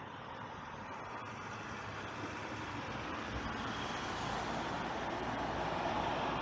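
Road traffic noise, growing steadily louder, with a low rumble of a passing vehicle coming in about three seconds in.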